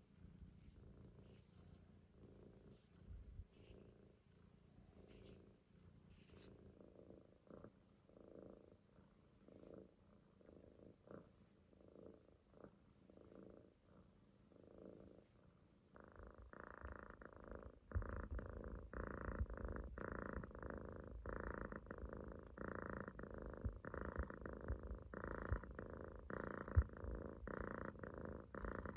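A Munchkin kitten's soft, rhythmic purring snore as it dozes, a rumble pulsing with each breath about three times every two seconds. It becomes clearly louder just past halfway.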